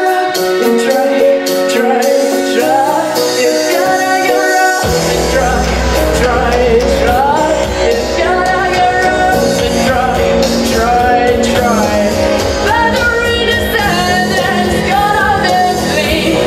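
A girl singing a song into a handheld microphone over instrumental accompaniment; about five seconds in, a deep bass comes in under the voice.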